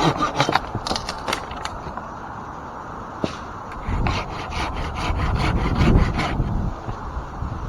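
A handsaw cutting through an ash limb in quick back-and-forth strokes, about four a second, for the first couple of seconds, then slower and fainter strokes. A low rumble swells up about halfway through.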